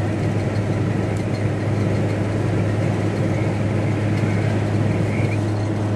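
Steady in-cab drone of a moving VW T4 Transporter van: engine and road noise with a constant low hum.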